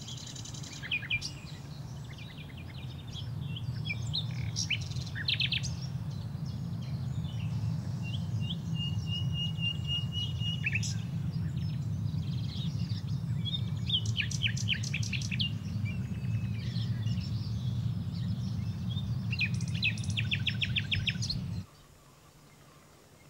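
Birds singing and calling in short chirps and fast trills, over a steady low rumble. The rumble and the birdsong cut off suddenly near the end.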